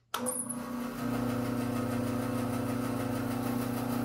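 Laguna 14|12 bandsaw switched on after being rewired for 220 volts: a click of the switch, then the motor comes up to speed within about a second and runs with a steady hum. The quick start-up is the sign of the 220-volt wiring working.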